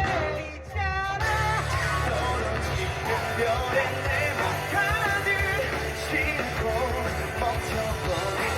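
Live pop-rock band with a male lead singer. Near the start the band drops out briefly while the voice holds a note, then the full band with bass comes back in about a second in and plays on under the singing.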